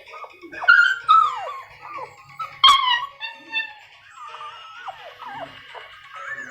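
Puppy whimpering and whining: a run of high-pitched cries that fall in pitch, with a sharper, louder yelp about two and a half seconds in.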